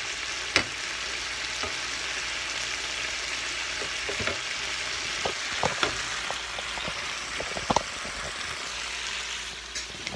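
Shrimp sizzling in teriyaki sauce in a frying pan, a steady hiss, while a slotted spatula and a wooden spatula stir them, clicking and scraping against the pan. The sharpest click comes about half a second in.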